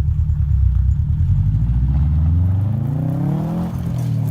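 2013 Subaru WRX STI's turbocharged 2.5-litre flat-four engine, heard from inside the cabin, accelerating hard: a low boxer rumble, then the revs climb for about two seconds and drop sharply near the end as it shifts up.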